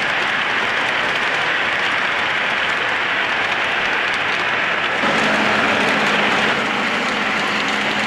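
O gauge model freight cars rolling on three-rail track, a steady rushing rumble of wheels, with a low steady hum joining about five seconds in.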